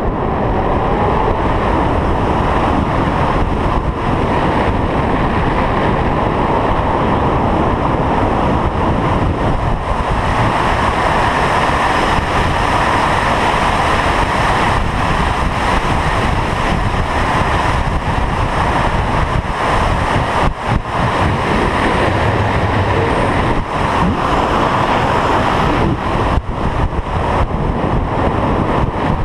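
Steady, loud rush of flight airflow buffeting the microphone of a GoPro camera mounted on a hang glider's wing, dipping briefly a few times in the second half.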